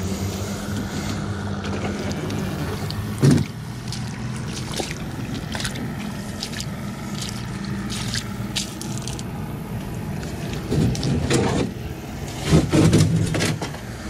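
A small boat being pulled by hand through shallow water against a muddy bank: the hull scrapes and knocks, loudest with a sharp knock about three seconds in and a cluster of knocks and scrapes near the end, with splashing footsteps in the water. A steady low motor hum runs underneath.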